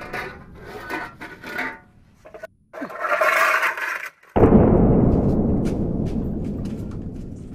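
A few short knocks and bursts of noise, then a sudden loud, deep boom about four seconds in that dies away slowly over about three seconds.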